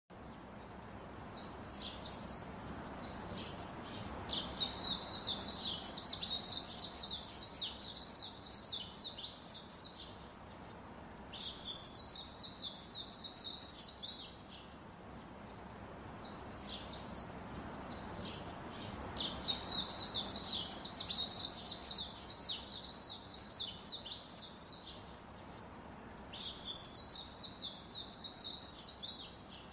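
Small songbird chirping in fast trills of high notes, in phrases a few seconds long with short pauses between, over a steady background hiss. The same run of phrases comes round again about every fifteen seconds, as from a looped recording.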